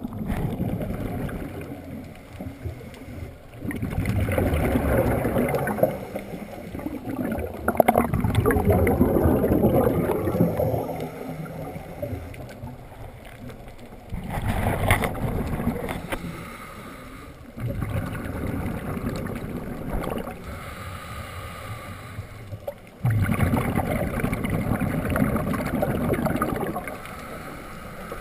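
Scuba regulator breathing underwater: slow breaths, each exhale a loud gurgling rush of bubbles, about six in all with quieter inhales between.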